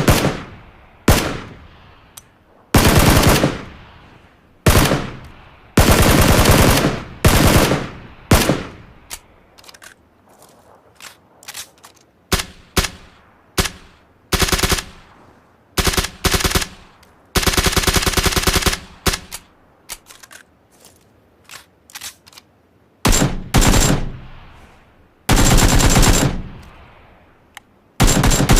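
Gunshot sound effects played one after another: single shots and short strings, plus several longer bursts of rapid automatic fire lasting a second or more. Each shot leaves a fading, echoing tail.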